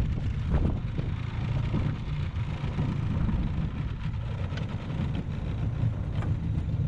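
Small outboard motor on an aluminium dinghy running steadily at low speed.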